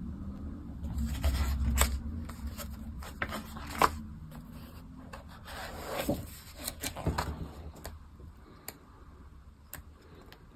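Pages of a hardcover comic album being flipped by hand: paper rustling, with sharp page flaps and snaps. It is busiest from about a second in to about seven seconds, then thins to a few single page clicks.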